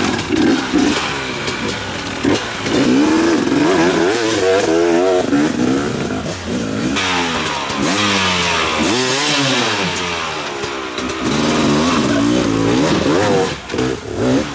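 Several off-road dirt bike engines revving at once, their pitches rising and falling and crossing each other.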